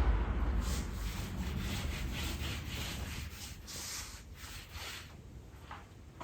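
Repeated rubbing strokes on wood, a couple a second, like hand sanding, fading after about four seconds.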